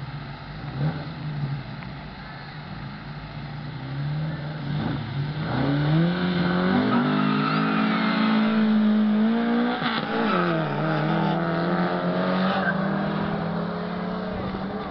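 Volvo 122S and Opel GT four-cylinder engines revving hard at a drag-race start and accelerating away. The pitch climbs over a few seconds, dips sharply about ten seconds in, then climbs again, getting a little quieter near the end as the cars pull away.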